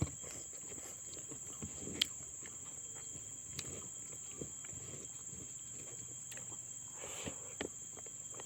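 Close-up eating sounds of a person chewing and sucking on a cooked fish head: wet smacks and small clicks scattered irregularly, with one sharp click about two seconds in.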